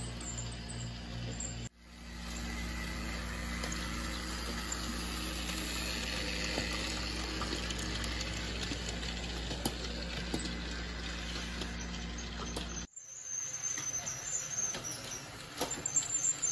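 Small electric motor of a toy Walt Disney World monorail train running steadily along its plastic elevated track, a constant low hum with a whirring hiss. The sound cuts off abruptly near the start and again about thirteen seconds in, where quieter, uneven knocks and rattles take over.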